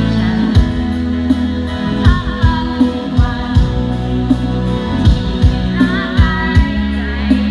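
A song with a singing voice over a steady beat: bass and regular drum hits, about two to three a second.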